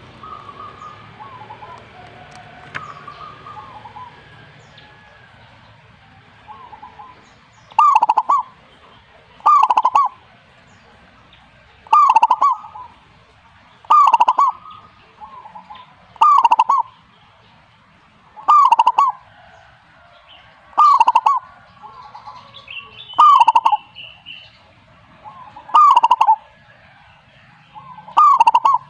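Zebra dove (perkutut) singing its cooing phrase over and over, each a short cluster of notes, about one every two seconds, after a few quieter, scattered calls.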